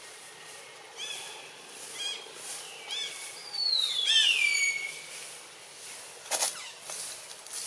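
High-pitched animal calls: short arched chirps about once a second, and one long whistle falling steadily in pitch a little after the middle, the loudest sound. A brief sharp click comes near the end.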